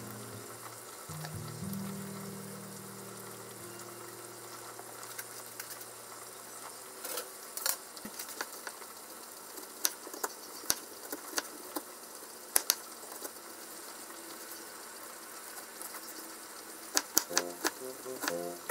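Chef's knife cutting an onion on a mango-wood cutting board: scattered single knife knocks on the board, then a quick run of chopping strokes near the end as it is diced. A steady hiss runs underneath, with soft background music in the first few seconds.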